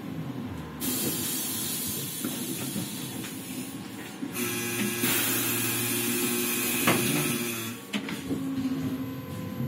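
Ikarus-Ganz 280.94 trolleybus standing still with its compressed-air system hissing: a loud hiss starts suddenly about a second in and carries on, joined by a steady hum about halfway, with a sharp click shortly before it stops near the end.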